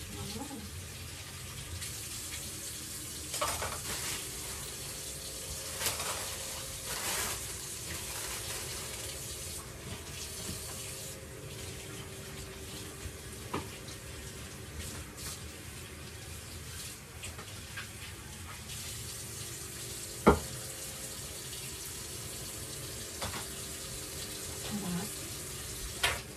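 Kitchen tap running into a stainless steel sink while fresh herbs are rinsed under it, with scattered light knocks and clatter. One sharp knock about twenty seconds in is the loudest sound.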